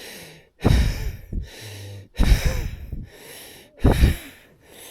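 A man breathing hard and fast while lying at rest, a loud breath about every second and a half with quieter breath sounds between. This is the laboured breathing of extreme altitude without supplemental oxygen.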